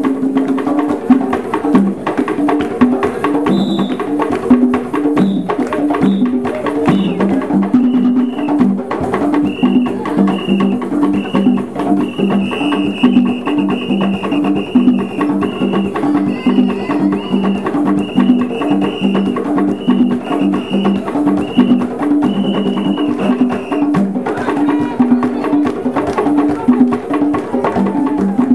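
Group of East African hand drums played in a fast, driving rhythm, the strokes landing on a few set pitches. Through the middle stretch, short high notes repeat evenly over the drumming.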